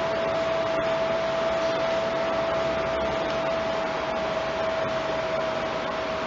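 Steady background hiss with a constant mid-pitched tone running through it, even and unchanging, with no distinct strokes standing out.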